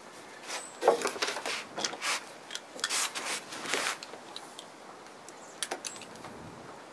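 Pencil scraping across a wooden deck board along the edge of an aluminium speed square, a run of short scratchy strokes as a cut line is marked, then a couple of light clicks near the end.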